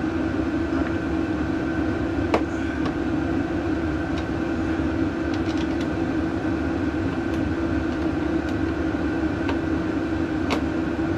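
Steady low mechanical hum with a droning tone, and a few light clicks, the clearest about two and a half seconds in and near the end.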